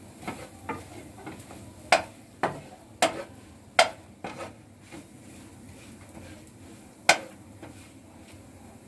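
Wooden spatula knocking and scraping against a frying pan as scrambled eggs are stirred: a series of sharp, irregular taps, most in the first four seconds and one more about seven seconds in. A faint, steady sizzle of eggs frying lies underneath.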